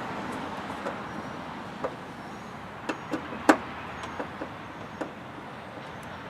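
Scattered light clicks and taps of a Phillips screwdriver working the tail-light screws on a Jeep Wrangler, with one sharper click about three and a half seconds in, over a steady background hiss.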